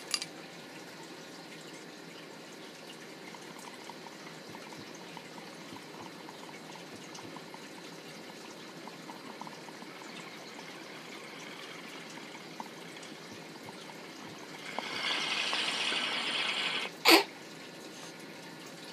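Water bubbling and trickling in a Beer Glass mini dab rig during a hit. It swells into a louder, hissier draw for about two seconds near the end, then stops with one short, sharp sound.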